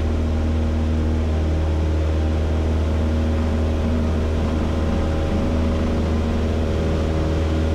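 Cessna 172's four-cylinder engine and propeller running steadily at full takeoff power during the takeoff roll, heard from inside the cockpit.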